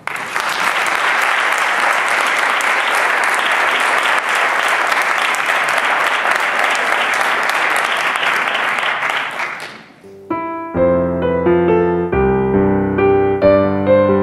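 Audience applauding, cut off abruptly about ten seconds in. Instrumental music starts about a second later.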